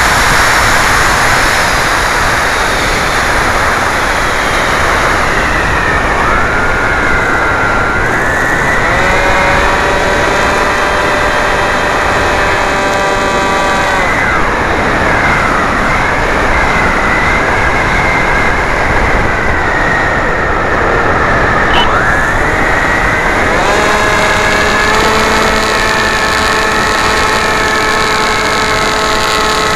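Wind rushing over the onboard microphone of a foam flying wing in flight, with its 2200 kV brushless motor and propeller whining at a steady pitch. The whine rises in about six seconds in, holds for about eight seconds and falls away, then rises in again near the three-quarter mark.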